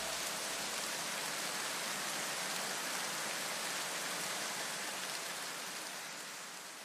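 A steady, even hiss like rain, with no knocks or clicks, fading away near the end.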